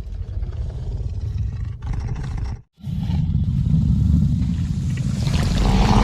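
Carnotaurus dinosaur sound effect: a deep, grating growl breaks off just under three seconds in. A second, longer roar follows and grows harsher and louder near the end.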